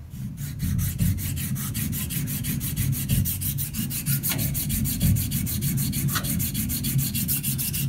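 Thiers Issard straight razor, its blade taped, scraped back and forth on an Atoma 400-grit diamond plate: a steady gritty rubbing. The honing is grinding down a high spot in the middle of the spine, left by an uneven factory grind.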